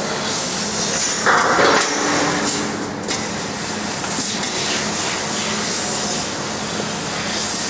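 XT fiber laser cutting machine cutting 1.5 mm stainless steel sheet: a steady hiss of cutting noise over a low hum, with a louder rushing burst about a second and a half in.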